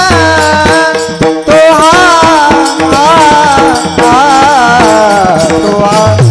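Varkari kirtan music: a wavering, bending melodic line over steadily jingling hand cymbals and drum strokes.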